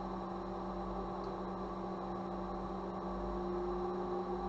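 Steady electrical hum made of a few constant tones, one low and one a little higher, with a faint high whine above them.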